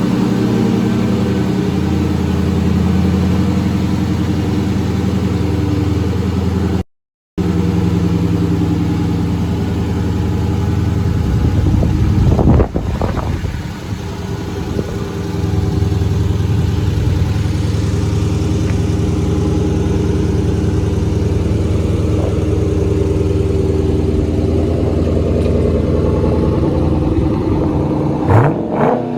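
Dodge Challenger R/T's 5.7-litre HEMI V8 running steadily at idle, with short revs about twelve seconds in and near the end.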